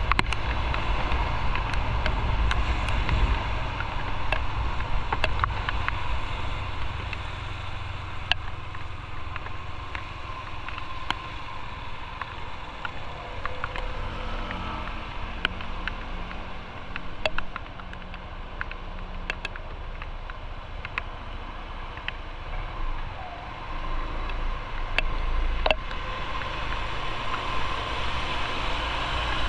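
Motorcycle riding on a road: steady engine and road noise, quieter through the middle and picking up again near the end, with scattered sharp clicks.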